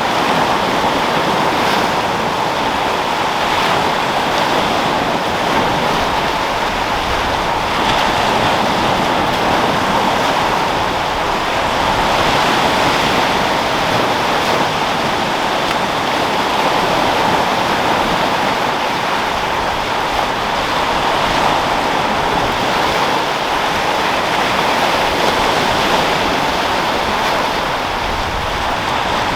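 Sea waves breaking and rolling onto rocks with wind, a steady continuous wash of surf.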